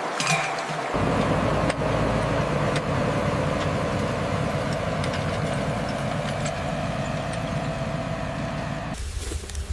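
A motor running steadily with a low rumble, starting abruptly about a second in and cutting off near the end.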